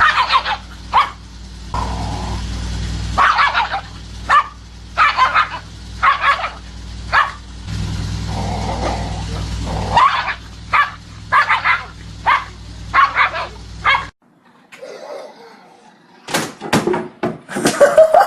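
A dog barking over and over in short separate barks. About 14 seconds in the background hum cuts off suddenly, and after a short pause more quick barks follow.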